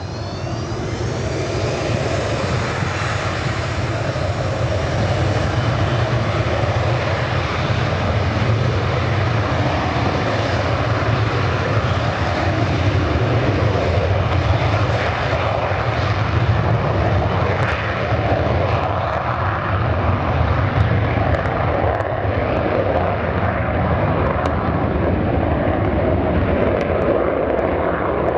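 Boeing 737-200's Pratt & Whitney JT8D turbofan engines spooling up to take-off power, a rising whine near the start, then a loud, steady jet roar through the take-off roll.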